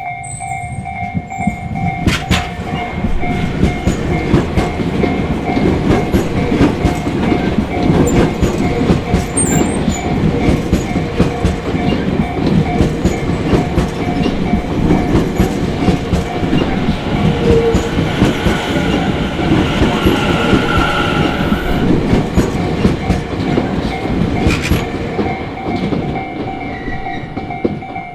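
A Tobu Tojo Line electric train passes over a level crossing, its wheels clattering over the rail joints, while the crossing's ecoK electronic warning alarm keeps ringing in steady pulsing tones. The train noise builds over the first couple of seconds and dies away near the end.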